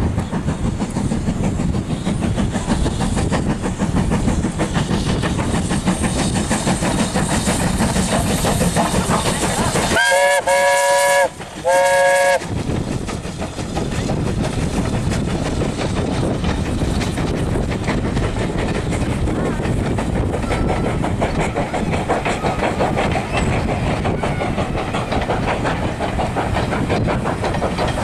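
Steam train running past. About ten seconds in, the locomotive gives two blasts on its steam whistle, each about a second long, in quick succession. Before and after the whistle, the train runs steadily, with a fast clickety-clack of wheels.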